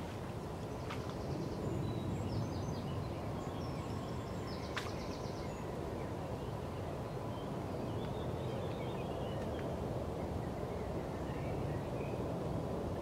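Steady low rumble of outdoor background noise, with small birds chirping in short bursts over it and two sharp clicks, about a second in and near five seconds.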